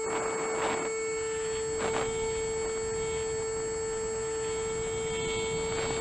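Onboard audio of an RC flying wing's brushless electric motor whining at a steady pitch, with wind buffeting the microphone in gusts about half a second in, around two seconds in and near the end.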